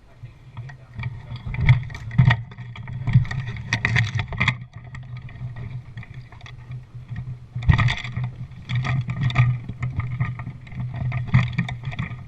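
Scattered airsoft gunfire: irregular sharp cracks in loose clusters, over a steady low hum.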